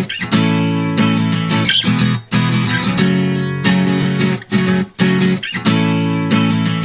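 Background music: strummed acoustic guitar playing chords in a steady rhythm, each chord held for about a second with brief breaks between them.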